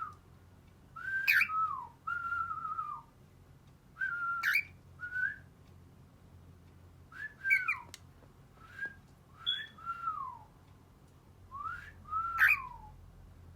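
Cockatiel whistling a string of short phrases with brief gaps between them, each note sliding up or down in pitch; a few phrases carry a sharp click.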